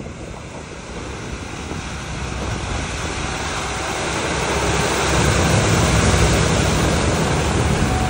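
A vehicle driving through deep floodwater, the rush and splash of the water growing louder to a peak about five to seven seconds in, then easing off.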